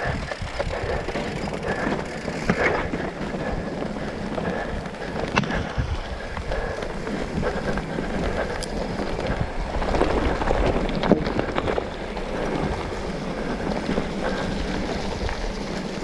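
Mountain bike rolling fast down a dirt trail: steady wind rush over the camera microphone mixed with tyre noise and the rattle of the bike over bumps, with a few sharp knocks.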